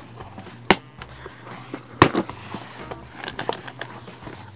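Cardboard shipping box and its packing being opened by hand: sharp snaps and crackles of cardboard and packaging. The loudest snaps come about two-thirds of a second and two seconds in, followed by a run of smaller ticks.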